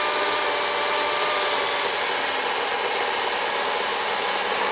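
Stihl MSA 230 battery chainsaw cutting wood: a steady, unbroken noise of the chain and electric motor working through the wood.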